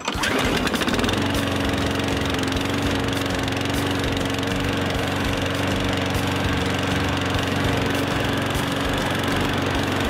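Ride-on lawn mower engine running at a steady pitch, cutting in suddenly at the start.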